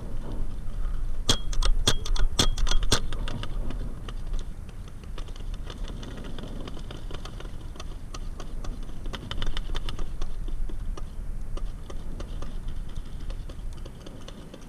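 Paintball markers firing: a quick string of about ten sharp pops a little over a second in, then fainter scattered shots, with another cluster near ten seconds.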